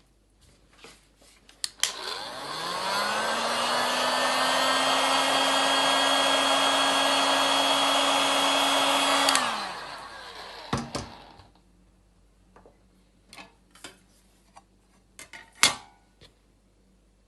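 Handheld electric heat gun switched on about two seconds in, its motor spinning up to a steady run with fan hiss, drying freshly mixed acrylic paint. It is switched off after about seven seconds and winds down. A few light clicks and knocks follow, the sharpest near the end.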